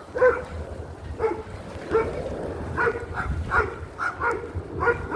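Dogs barking repeatedly in short, high-pitched barks, roughly one every two-thirds of a second, over a steady low rumble.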